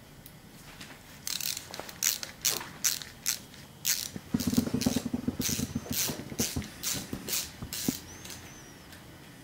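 Screwdriver working at a screw in the metal arm of a Bernina 217 industrial sewing machine: a run of sharp metal-on-metal scrapes and clicks, with a short buzzing rattle in the middle.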